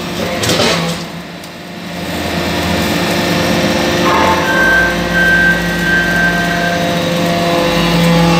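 Hydraulic brass-chip briquetting press running: a steady hum from its hydraulic power unit, with a short clatter about half a second in and a deeper rumble joining from about four and a half seconds.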